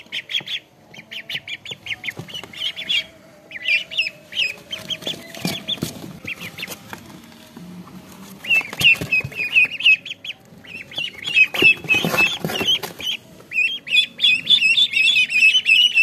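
A group of domestic ducklings peeping: rapid runs of short, high calls with brief pauses between runs. Scuffling knocks come through about five seconds in and again about twelve seconds in.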